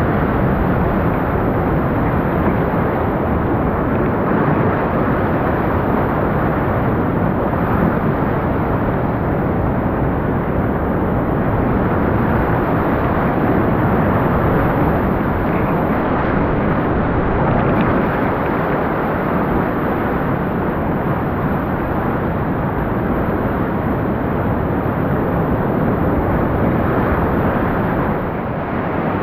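Loud, steady rush of whitewater rapids churning around a rowed raft, with no let-up.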